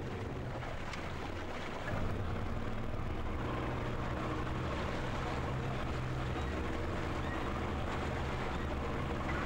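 The outboard engine of an RNLI inflatable inshore lifeboat running under way, with a steady low hum over a hiss of wind and water. It gets louder about two seconds in, as the throttle opens up, and holds steady after that.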